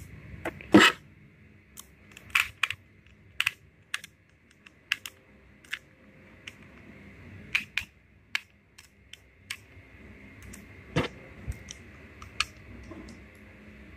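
Irregular small clicks and taps of airsoft pistol parts being handled and fitted together, as the grip screws go back in. The loudest clicks come about a second in and again near eleven seconds.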